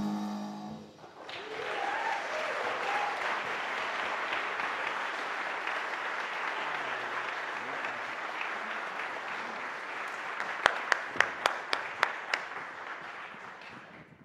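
The quartet's last held chord dies away within the first second, then a congregation applauds steadily. A run of about six louder, sharper single claps stands out a little before the end, and the applause fades away.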